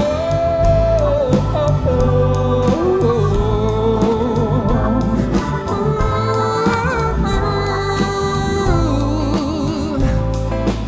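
Live rock band music: drums keep a steady beat under a long, bending lead melody line and a steady bass.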